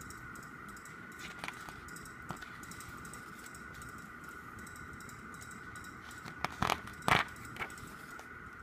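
Handling sounds from leafing through a photo book: a few light taps and paper rustles, and two louder page-and-cover handling noises about seven seconds in, over a steady faint high-pitched hum.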